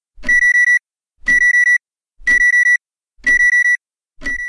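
Electronic alarm-clock beeping: loud, high beeps in groups of four quick pulses, one group about every second, five groups in all.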